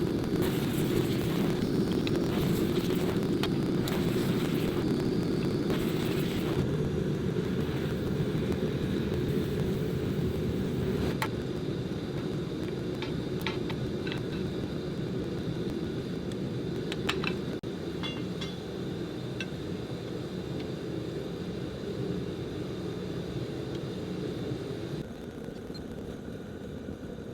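A steady low rumble, a little quieter near the end, with a few scattered light clicks and taps.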